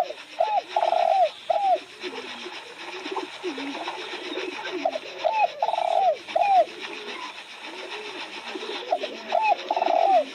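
Spotted dove cooing its three-note song (a short note, a longer rolling note, a short note), repeated three times about four seconds apart, over softer, lower cooing throughout.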